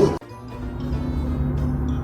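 Background music with low, steady held tones over a low rumble, starting after an abrupt cut a moment in.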